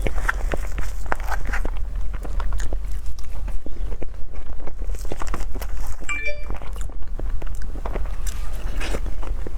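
Close-miked eating sounds: repeated biting and chewing of a dessert, many short clicks in quick succession. A brief high tone sounds about six seconds in, over a steady low hum.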